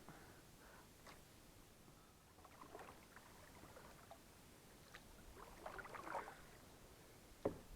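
Near silence around a fishing kayak: faint water sounds at the hull, with two soft noisy swells and a few light clicks.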